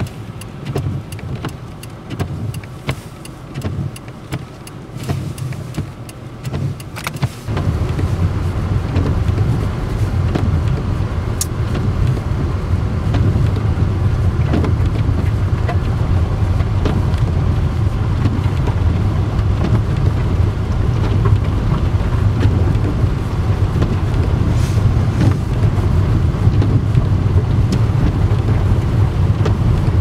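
Car engine and road noise in snowy traffic. An uneven, pulsing low rumble gives way about seven seconds in to a steadier, louder low engine hum with a haze of road noise.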